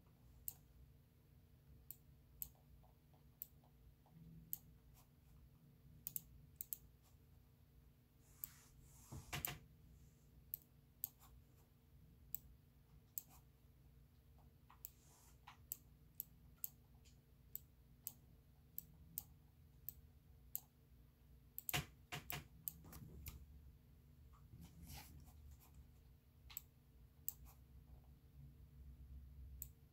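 Sharp, irregularly spaced clicks, about one or two a second, from clicking in the nodes of a Bezier outline on a laptop, over faint room hum. A few brief rustling noises come about a third of the way in and again about three quarters through.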